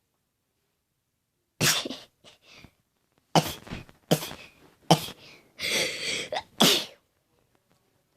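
A person sneezing several times in quick succession, five or six sharp, loud sneezes over about five seconds.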